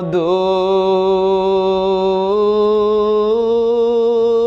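A man singing a Bengali Islamic gazal in praise of Medina with no instruments, holding one long drawn-out vowel that steps up slightly in pitch about two seconds in and again near the end.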